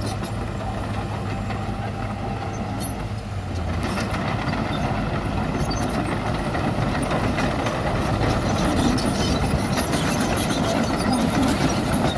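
Diesel engine of heavy earthmoving machinery running with a steady low hum. About four seconds in it grows louder and fuller, and it stays loud to the end.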